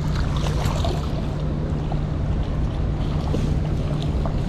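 A hooked steelhead splashing at the surface of the river close in, heard as short scattered splashes over a steady rush of wind on the microphone and moving water.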